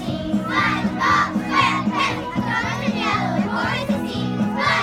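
Children's choir singing over instrumental accompaniment, with the chatter of a crowd.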